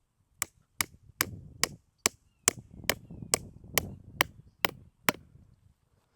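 A mini sledgehammer striking a fence post twelve times in a steady rhythm, a little over two blows a second, driving the post into hard, dry ground.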